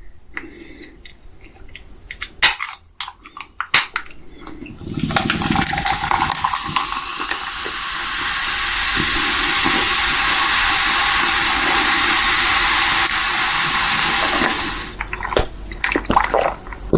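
Audience applause: a few scattered claps, then dense clapping that builds about five seconds in, holds steady for about ten seconds and thins out again near the end.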